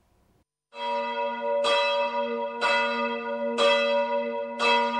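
Church bell tolling, five strokes about a second apart, starting under a second in, each stroke ringing on into the next.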